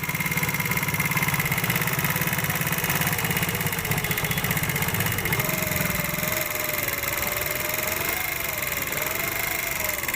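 70cc single-cylinder four-stroke motorcycle engine (CD 70 type) idling with a lot of rapid, even clatter from the valve gear: the tappets are badly loose. Its low note drops away about six seconds in while the clatter runs on.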